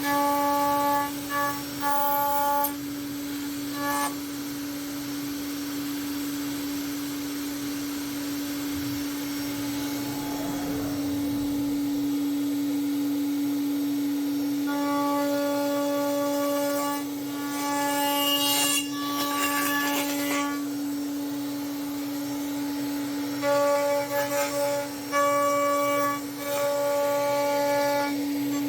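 CNC router spindle running at a steady high pitch while machining a laminated wooden handlebar. In stretches its tone turns harsher and richer as the bit cuts into the wood.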